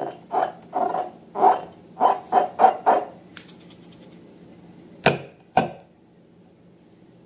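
Slime being handled with balloons: a run of short rhythmic squishy strokes, roughly two to three a second, that stops about three seconds in. Later come two sharp snaps about half a second apart.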